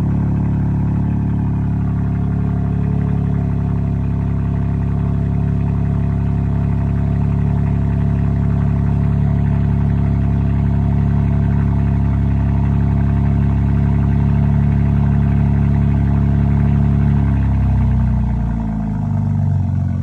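BMW G87 M2's twin-turbo S58 inline-six at cold-start high idle with the exhaust valves open. It plays through the stock rear exhaust, with a Dinan mid pipe that deletes both resonators. A steady, loud drone whose pitch steps down near the end as the idle drops.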